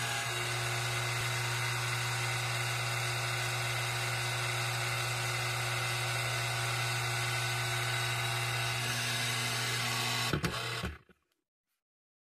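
Channel Master 9512 antenna rotator control box giving a steady low electrical buzz after its dial is turned. It stops about ten and a half seconds in with a couple of clicks.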